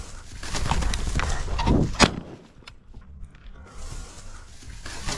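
Footsteps crunching through dry prairie grass and crusted snow, a run of crackling steps, with one sharp loud crack about two seconds in; the crackling eases off for a moment and then picks up again near the end.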